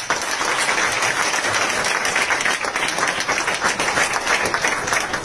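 Audience applauding: dense, steady clapping from many people that starts abruptly and dies away near the end.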